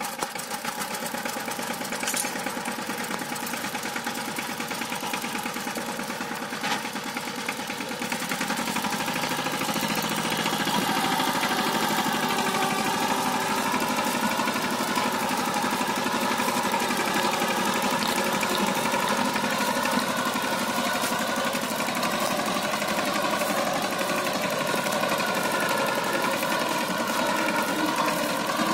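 Two-wheel power tiller's single-cylinder diesel engine running with a steady, even beat; from about eight seconds in it gets louder as it pulls a trolley heavily loaded with paddy sheaves.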